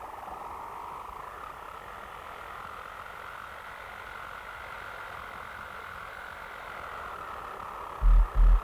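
A steady rushing noise texture from an industrial death metal demo, its pitch slowly wavering, like an electronic sample or effects interlude. Near the end, two heavy low hits break in as the music starts.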